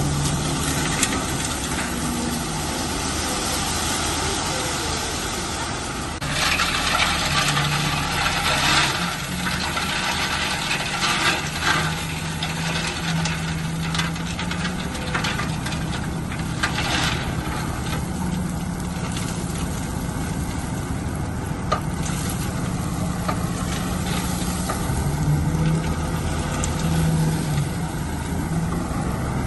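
Bulldozer's heavy diesel engine running steadily under work, its pitch shifting now and then. Louder stretches of rough grinding noise come about six seconds in, around eleven seconds and again around seventeen seconds.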